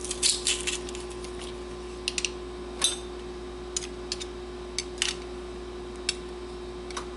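Knife blade scraping and tapping against a metal garlic press while crushed garlic is cleaned out of it: a quick run of scrapes at first, then scattered small clicks. A steady faint hum runs underneath.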